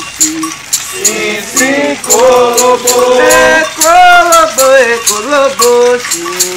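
Voices singing a Candomblé chant, with a shaker rattle keeping a steady beat.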